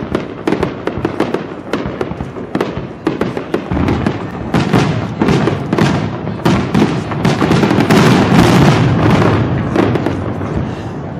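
Fireworks display: a rapid, dense barrage of bursting shells and crackles, many bangs a second. It grows to its loudest and thickest about eight seconds in, then begins to thin out.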